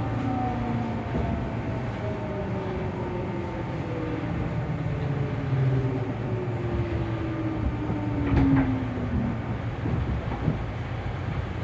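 Tobu 9000-series chopper-controlled train car 9204 with its drive tones falling steadily in pitch as the train slows, over a rumble of wheels on track. The tones stop about nine seconds in, followed by a couple of short knocks. This car is noted for an abnormal noise from its drive equipment.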